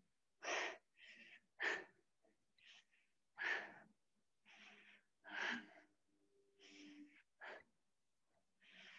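A woman breathing hard through a set of dumbbell squats, with a short, sharp exhale roughly every two seconds and softer breaths in between.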